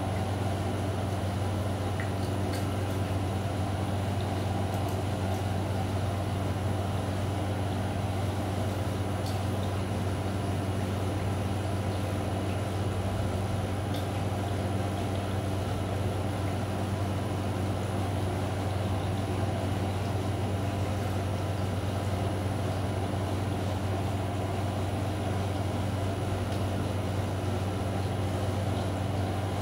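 Steady, unchanging low machine hum with a light hiss over it.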